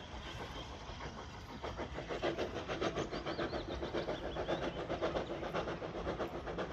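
Steam locomotive hauling a train of carriages away, with a rapid, even beat of exhaust chuffs and wheels on the rails; it gets louder about two seconds in.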